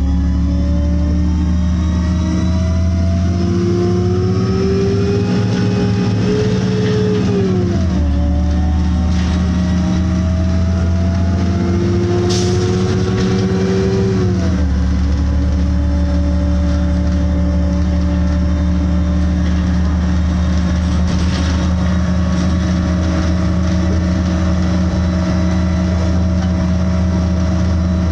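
City bus engine and drivetrain heard from inside the passenger cabin: the pitch rises as the bus picks up speed and drops back twice, about 7 and 14 seconds in, as the transmission shifts up, then holds steady at cruising speed. A sharp click about 12 seconds in.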